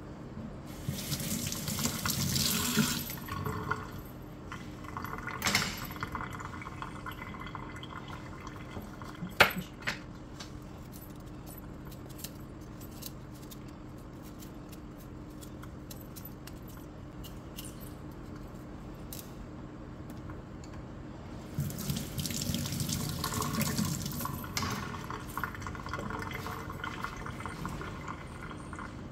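Kitchen tap running into a stainless steel sink in two short spells, about a second in and again after about twenty-one seconds. Between them come faint small clicks and one sharp knock near ten seconds, over a steady low hum.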